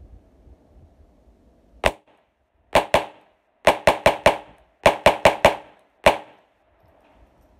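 Colt Government 1911-style .22 LR pistol (made by Walther) fired rapidly: about fourteen sharp shots in uneven strings, the quickest at about six shots a second, with short pauses between the strings.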